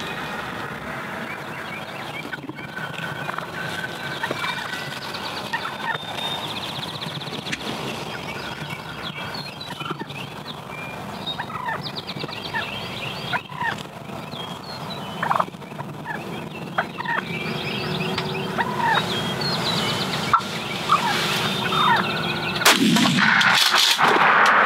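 Wild turkey toms gobbling several times, with many shorter calls in between, over a steady low hum.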